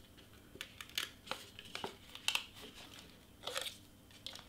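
Faint rustling and crinkling of a paper-covered gift box and its ribbon, with a few light taps, as the ribbon is worked off and the lid lifted away.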